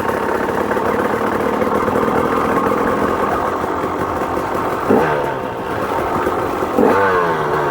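KTM 250 XC two-stroke dirt bike engine running at a steady speed, then revved sharply twice about five and seven seconds in, the pitch jumping up and falling away each time.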